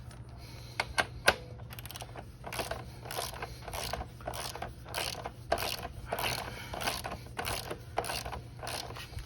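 Ratcheting torque wrench with a 27 mm hex bit tightening a rear axle bolt: a few sharp clicks, then a steady run of short ratchet strokes, about two to three a second.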